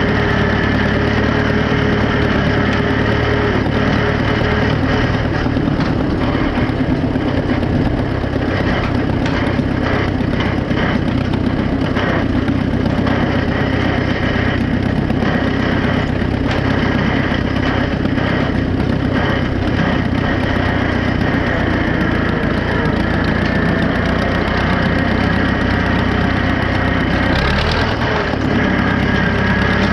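Farmall F-20 tractor's four-cylinder engine running steadily while it pulls a hay rake across the field. Some rattling comes and goes through the middle.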